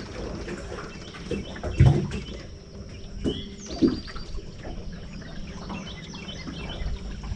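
Birds chirping over a steady low hum, with a sharp knock about two seconds in and another about four seconds in.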